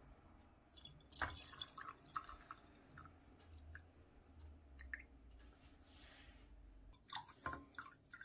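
Milk mixed with yogurt starter being poured in a thin stream into glass jars, faint liquid trickling and dripping, with a few light clicks and taps, the clearest about a second in and near the end.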